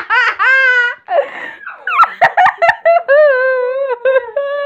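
A boy laughing hard in long, high, wavering squeals, with a short break about a second in.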